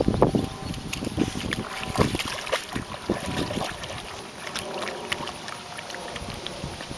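Water splashing and sloshing as two dogs swim and wade through a pond, in many small irregular splashes that are loudest in the first second, with some wind on the microphone.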